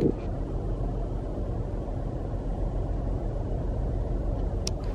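A car's cabin noise: a steady low rumble of the running car heard from inside, with a short click near the end.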